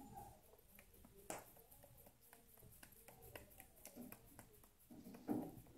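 Faint soft pats and clicks of hands pressing and shaping maize-flour dough, with one sharper tap about a second in.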